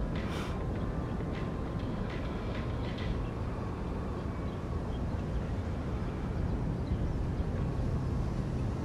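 Outdoor ambience: a steady low rumble, with a few short high chirps in the first three seconds.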